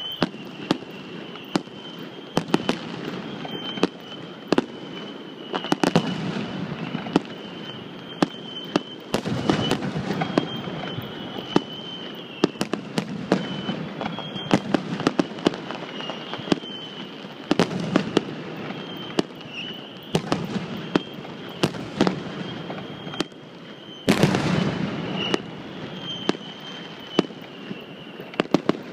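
Aerial fireworks shells bursting in a long irregular series of sharp bangs. Several spells of rumble come where many go off close together, the densest about two-thirds of the way in and near the end.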